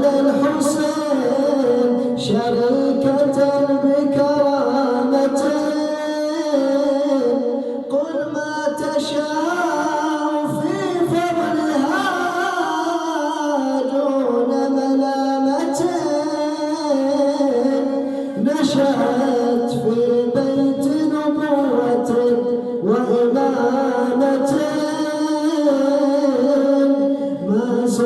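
A man chanting a devotional Arabic poem in long, ornamented melodic phrases, holding and bending notes, with short breaths between the lines.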